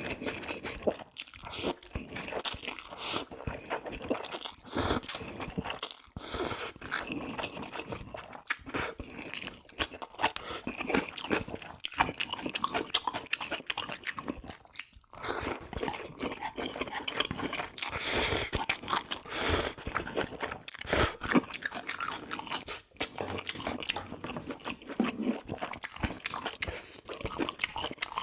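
Close-miked eating: irregular bites and chewing, with crunching throughout.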